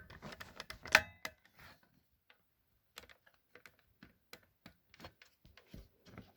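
Scattered light clicks and taps of handling, with the sharpest click about a second in, as the plastic smoke detector is fiddled with.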